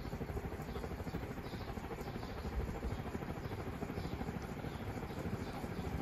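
Winco Wattmaster ceiling fan running fast, a steady rough whirring with a rapid flutter from its motor bearings. The bearing is a bit rough and very noisy from gunk and dirt inside it, despite fresh oil that is meant to wear in.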